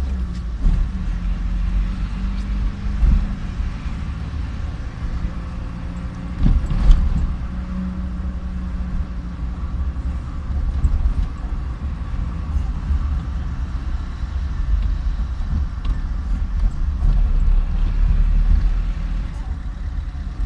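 A vehicle driving along a street: engine and road noise under a heavy, uneven rumble of wind on the microphone, with a couple of knocks, the loudest about seven seconds in.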